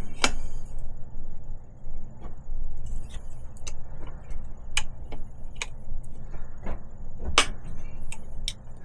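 Metal hand tools clinking: a rivnut setter and adjustable wrench handled against a bicycle frame, a handful of sharp, separate clicks over a steady low hum.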